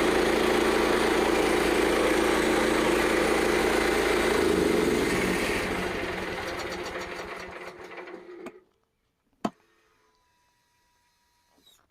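Gasoline engine of a Frontier OS27 portable sawmill running steadily, then sputtering and dying away over about three seconds as it runs out of gasoline. A single sharp click follows about a second after it stops.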